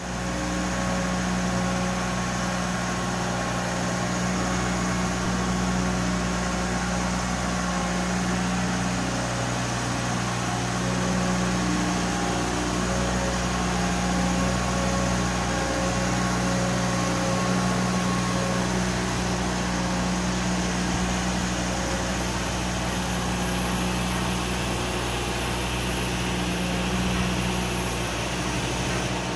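Engine of a Marine Travelift boat hoist running steadily, a constant mechanical drone with a fixed pitch.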